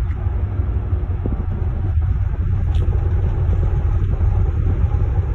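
Steady low rumble on a ferry's open deck: wind on the microphone mixed with the ship's own drone.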